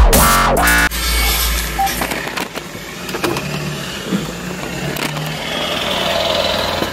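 Electronic dance music cuts off about a second in, then steady noise inside a vehicle's cab: the engine running, with outside noise coming in through the open side window.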